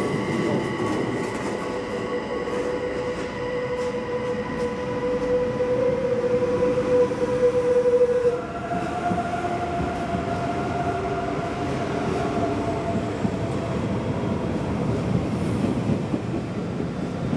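Bombardier Twindexx (SBB RABDe 502) double-deck electric train moving off along the platform. Its traction drive whines in steady tones over the rumble of the cars, swelling for a few seconds, then stepping up to a higher pitch about eight seconds in.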